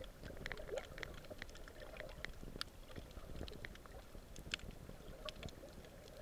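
Underwater ambience picked up by a submerged camera: irregular faint clicks and crackles scattered throughout, over a steady low rumble of water.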